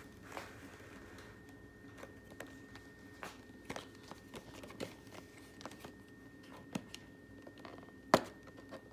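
A small cardboard retail box being handled and turned over in the hands, with light scrapes and scattered taps, and one sharper knock near the end.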